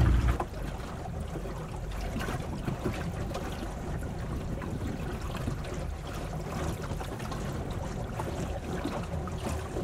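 Water splashing and trickling along the hull of a small open sailing boat under way in a chop, a steady wash with a low rumble underneath and scattered small clicks.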